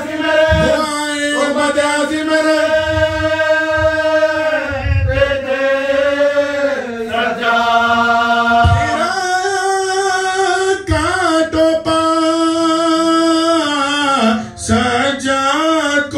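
A man's voice chanting a noha, an Urdu mourning lament, through a microphone. He draws out long held notes that slide up and down between pitches.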